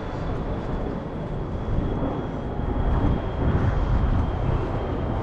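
Steady rumble of interstate highway traffic, with a faint thin whine held steady above it.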